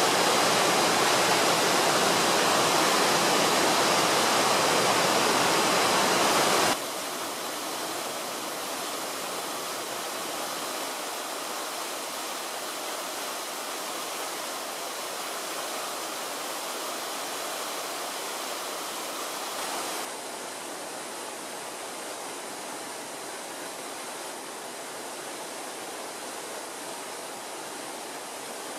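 Water pouring over the tiers of a stone cascade fountain, a steady rushing splash. It drops abruptly in level about seven seconds in and again about twenty seconds in, heard from farther off.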